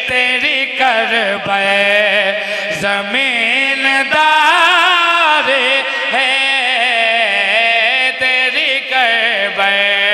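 A man singing a mourning lament (wain) solo, holding long wavering, melismatic notes.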